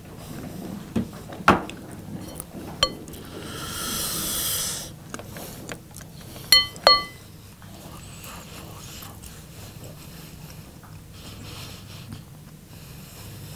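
A spoon clinking twice against a bowl, after a few lighter taps and a brief scraping sound; then quiet chewing.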